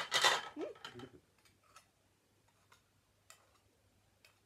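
A table knife clattering and scraping against a plate for about a second, then a few faint, scattered clicks of cutlery as bread is buttered.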